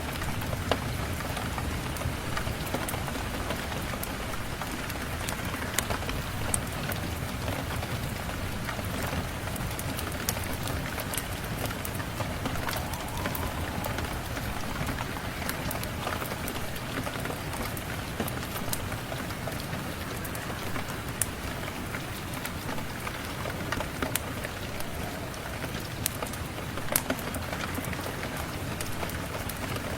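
Steady rain falling, mixed with the occasional sharp crackles and pops of a fireplace.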